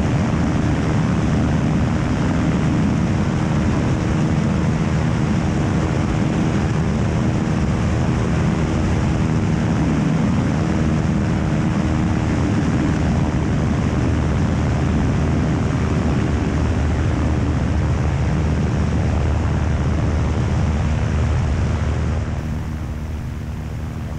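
Piper Super Cub floatplane's engine and propeller running steadily in flight, heard from a camera mounted outside on the airframe. The noise eases slightly near the end.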